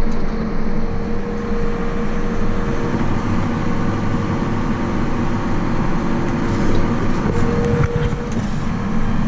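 Vehicle engine running steadily, a continuous low rumble with a steady hum on top.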